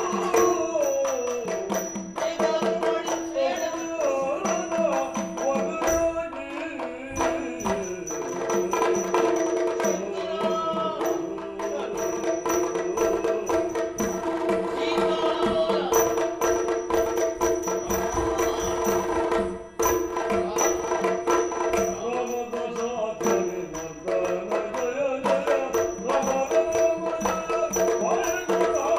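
Yakshagana accompaniment music: a singer's line over a steady drone, with hand-drum strokes and small cymbals keeping the beat.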